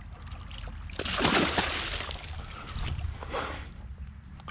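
A large largemouth bass thrashing and splashing in shallow water at the bank as it is landed. The loudest burst of splashing comes about a second in, with another shorter one past the three-second mark.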